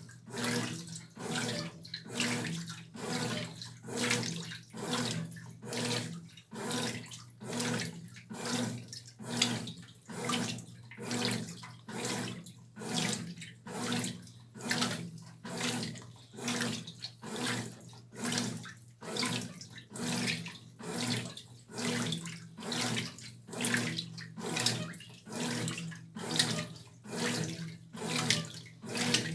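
Brastemp Tira Manchas Pro 12 kg washing machine agitating a load in its wash water: the water and clothes slosh in even surges, about four every three seconds, over a steady motor hum.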